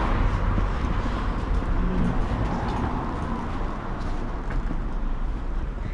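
Steady outdoor rumble of road traffic.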